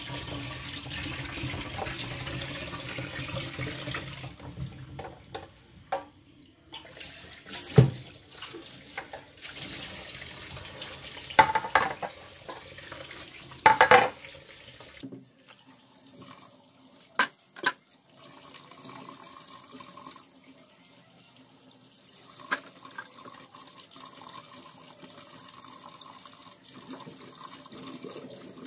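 Tap water running into a stainless-steel kitchen sink while things are rinsed by hand, strongest in the first few seconds. Several sharp knocks and clatters of dishes or utensils against the sink come through.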